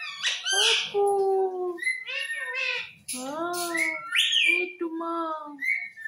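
Indian ringneck parakeet chattering in a string of speech-like mimicked syllables, with a higher, rising squawk about four seconds in.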